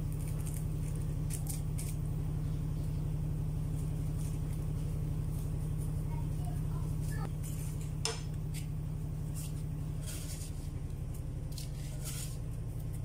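A metal spatula clinking and scraping against a steel wok of shrimp, a few short strokes in the second half, over a steady low hum.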